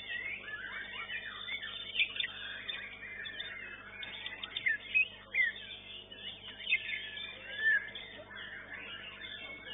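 White-rumped shama singing: a fast, unbroken string of varied whistles, slurred up- and down-sweeps and sharp chirps, over a faint steady hum.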